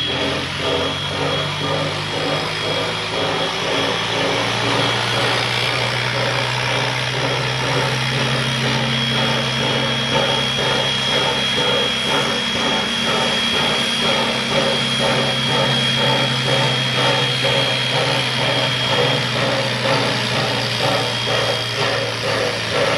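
Steam locomotive C17 974, a Queensland Rail C17 class 4-8-0, standing in steam as it is turned on a turntable. It gives a steady mechanical hum, a quick even pulse and a thin high whine.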